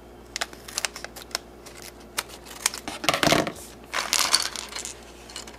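Scissors snipping across the top of a shiny foil Lego minifigure blind bag, a few short clicks, then the packet crinkling and rustling as it is pulled open by hand, loudest about three seconds in.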